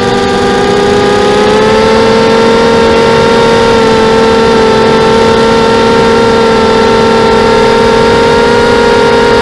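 Diatone FPV250 quadcopter's brushless motors (RCX 1804 2400kv) and 5x3 props whining in flight, heard from on board, over a rushing hiss. The whine steps up slightly in pitch and loudness about one to two seconds in, then holds steady.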